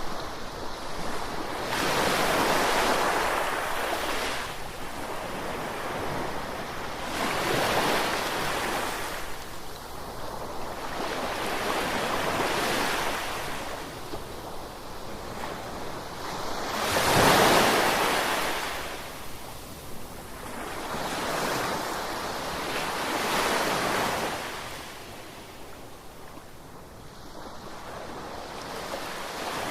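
Ocean waves breaking and washing ashore, surging and fading every few seconds, with one wave about two-thirds of the way through louder than the rest.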